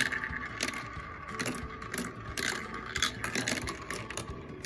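Marbles rolling and clattering down a plastic Quercetti marble run, with a quick, irregular run of clicks and rattles as they knock through the tracks, funnels and bowls.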